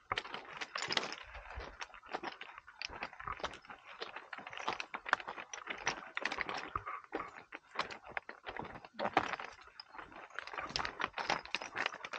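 Footsteps on a loose rocky trail: a dense run of irregular crunches and clicks of stones shifting and knocking underfoot.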